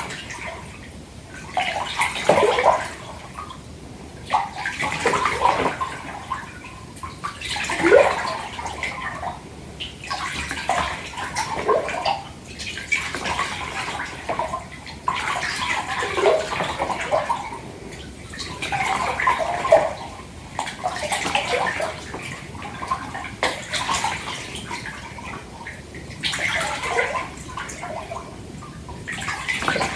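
Hands sloshing water in a filled bathtub, in slow swells that come back about every three seconds, with quieter lapping between them.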